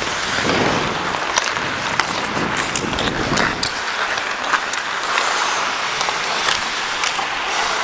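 Ice-hockey skate blades scraping and carving on the ice, with sharp clacks of sticks and puck scattered through, the loudest a little after one and a half seconds, at two seconds and at about four and a half seconds.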